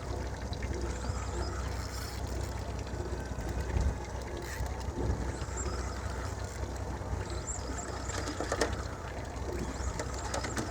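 Steady low rumble on a fishing boat at sea, with strong wind buffeting the microphone. A few short clicks and knocks come near the end.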